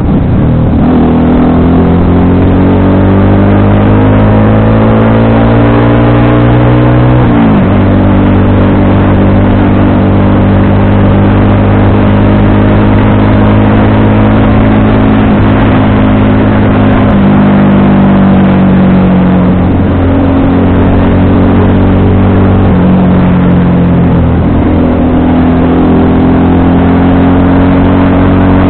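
FKM Victorino 250i V-twin motorcycle engine under way: the revs climb for about seven seconds, drop sharply at a gear change, then hold a steady cruise with two brief dips and a slow rise near the end.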